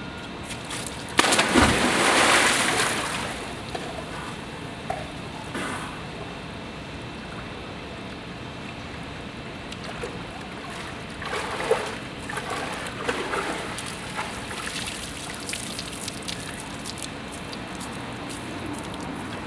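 A person plunging into a swimming pool: a loud splash with a deep thump about a second in, then water sloshing and lapping, with a few smaller splashes from swimming strokes later on.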